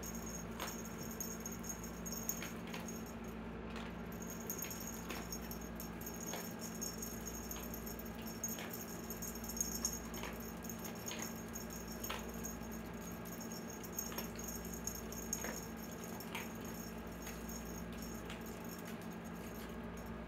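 A cat playing with a wand toy: sporadic light clicks and small rattles, one every second or two, over a steady low electrical hum.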